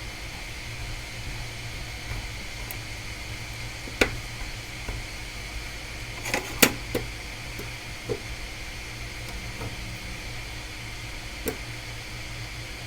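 Steady fan-like hum at a workbench, with a handful of short sharp clicks and taps from tools and parts being handled, the loudest about four and six and a half seconds in.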